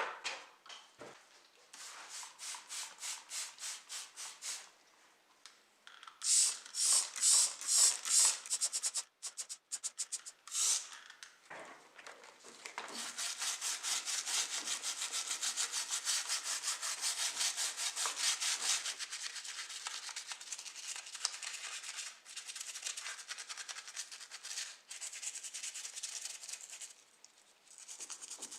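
Repeated rubbing strokes by hand on a model car body: a few louder, slower strokes about a quarter of the way in, then a long run of fast, steady strokes that grows quieter in the last third.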